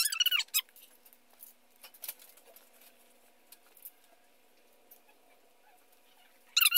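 High-pitched, wavering calls from a small animal, about half a second at the start and again for over a second near the end. Between them come only a few faint clicks of paper being handled.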